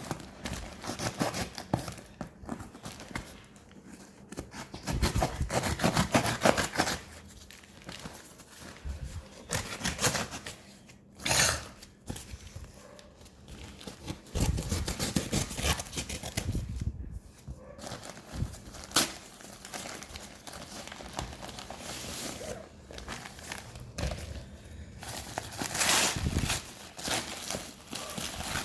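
Parcel packaging being cut and torn open by hand, with crinkling and tearing in irregular bursts.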